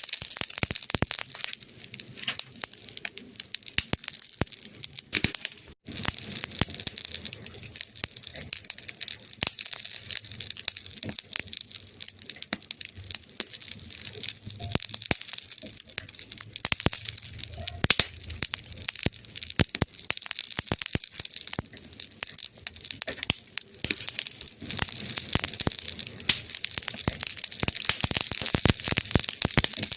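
Wood campfire burning, with dense, irregular crackles and pops over a steady hiss. The sound briefly drops out about six seconds in.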